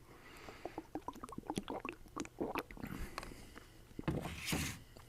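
Light, irregular clicks and taps, several a second, with a short breathy hiss about four and a half seconds in.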